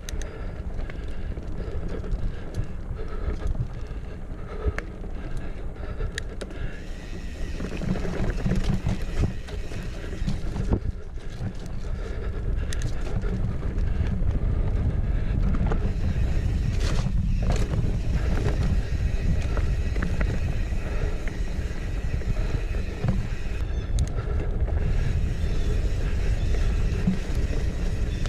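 Wind buffeting a chest-mounted action camera's microphone over the rumble of mountain bike tyres on a dirt trail, with occasional knocks and rattles from the bike, growing louder about halfway through.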